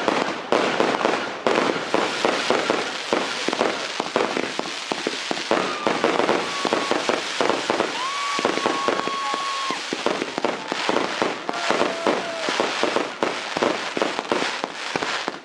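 A 3200-gram firework battery firing in rapid, continuous volleys of bangs and crackles. A few steady whistling tones sound over the barrage, the longest lasting about two seconds near the middle.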